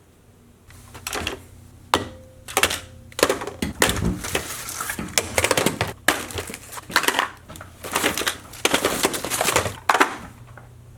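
Packaging being handled and torn open: an irregular run of scraping, crinkling and tearing noises that starts about a second in and stops shortly before the end.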